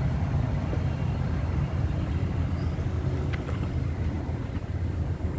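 VIA Rail passenger train coaches rolling past on the track: a steady low rumble.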